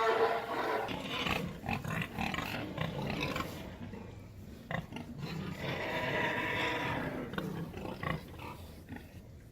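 Pigs squealing in two long, harsh bouts, one at the start and another about six seconds in.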